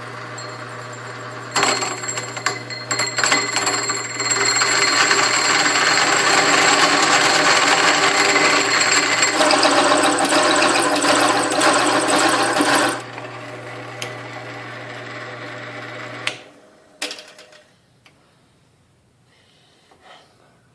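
Portable band saw cutting a steel railroad rail: the motor runs steadily, and from about a second and a half in the blade bites into the steel with a loud, uneven cutting noise that lasts about eleven seconds. The motor then runs on its own briefly and is switched off, followed by a couple of knocks.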